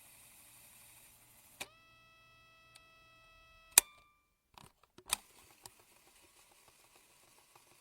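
Tape player fast-forwarding. A button clunk starts a steady whirring whine that rises slightly as the motor spins up and runs about two seconds, then a loud clunk stops it. A few more mechanical clicks and faint ticking follow.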